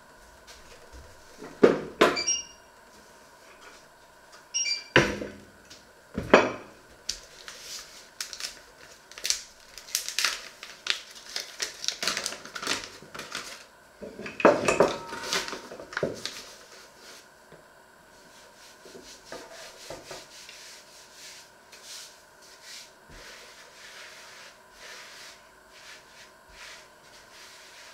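Kitchen handling clatter on a wooden worktop: a few sharp knocks with a brief metallic ring in the first several seconds, then a run of busy clattering and handling, easing into soft rubbing as a hand spreads flour over the wood.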